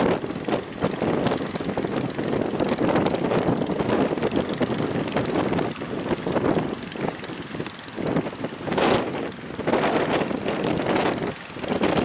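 Surf breaking on the beach and wind gusting on the microphone: a rushing noise that swells and dips, louder again about nine seconds in.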